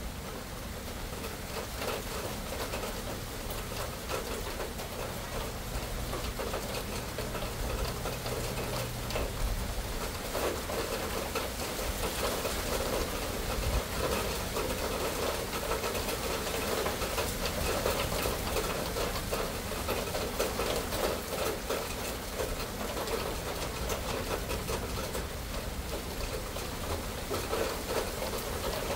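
Steady rain, with many separate drops striking close by.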